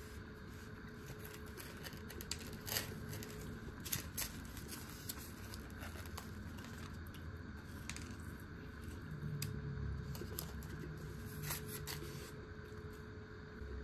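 Wooden chopsticks clicking and scraping on a plastic food tray while pulling apart a crumb-coated fried sardine, with a few sharp clicks and some crackle over a steady low hum.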